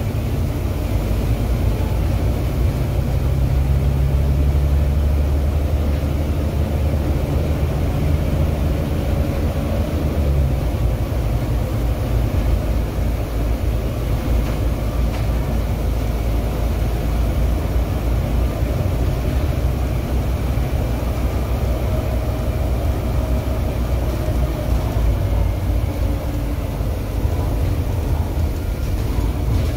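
Volvo B9TL double-decker bus under way, heard from the upper deck: its six-cylinder diesel engine running steadily with tyre and road rumble. The deep engine drone changes about ten seconds in.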